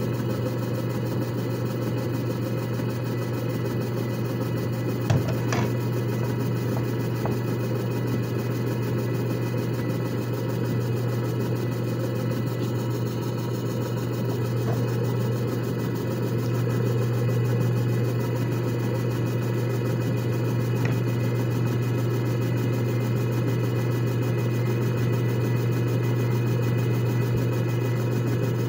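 JFJ Easy Pro disc repair machine running a resurfacing cycle, its motor spinning the disc with a steady low hum over a rushing noise. A small click about five seconds in and another later on.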